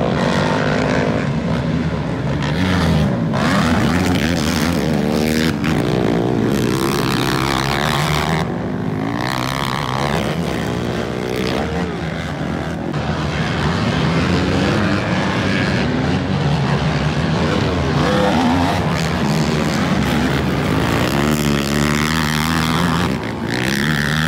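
Race quad engines revving up and down, rising and falling in pitch as several ride past on the dirt track.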